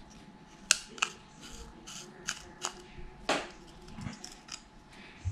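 Small sharp clicks and light scrapes of a thin pick prying at a part on the circuit board inside the plastic case of a Wahoo Tickr heart-rate monitor. There are about a dozen irregular ticks, the loudest a little over three seconds in.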